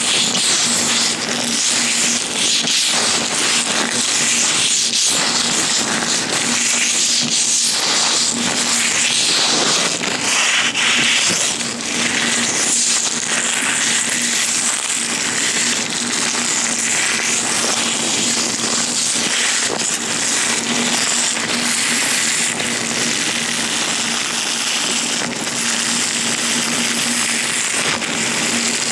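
Latex-gloved hands rubbing and handling right at a sensitive microphone, making a dense, continuous crackling.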